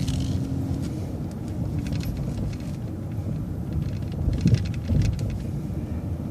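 City transit bus in motion, heard from inside: a steady low engine and road rumble with scattered light rattles and clicks from the bus body and fittings.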